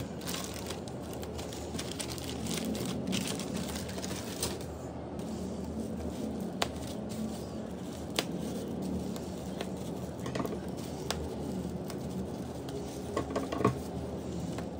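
Plastic packaging rustling and crinkling as a blue poly mailer is opened and a black bubble-wrap parcel is handled and cut with scissors. A few sharp clicks and snips come through, twice in the middle and several close together near the end.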